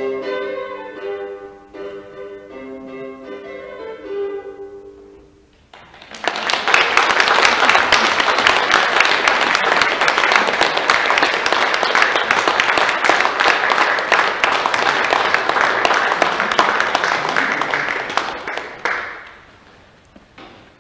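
The last notes of a kobza and violin duo ring and fade away, then an audience applauds for about thirteen seconds, the loudest sound, dying down near the end.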